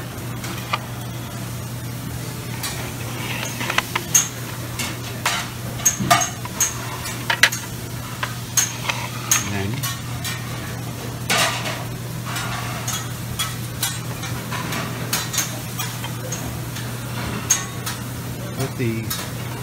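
Dishes and cutlery clinking and clattering in a buffet restaurant: many short, sharp clinks at irregular intervals over a steady low hum.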